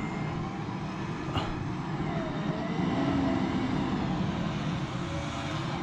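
Vehicle engine running steadily under load during an off-road recovery, as a stuck camper van is hauled up a steep dirt slope on a tow strap by a winch and a towing vehicle pulling together. A faint whine wavers slowly in pitch over the engine.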